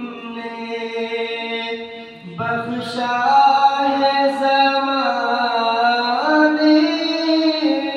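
A naat, a devotional poem in praise of the Prophet, sung by a single unaccompanied voice in long held notes. It breaks briefly a little over two seconds in, then a louder phrase begins and steps up in pitch near the end.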